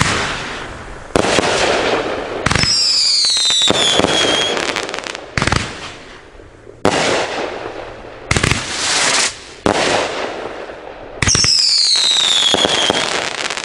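Hog Wild Jet Fire 500-gram fan cake firing shot after shot: about eight sudden launches, each trailing off in a second or two of noisy hiss. Two whistles fall in pitch, one a few seconds in and one near the end.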